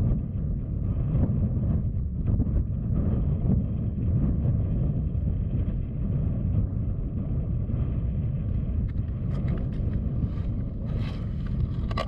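Wind buffeting the microphone out on the open ice: a steady, uneven low rumble, with a few faint clicks or rustles near the end.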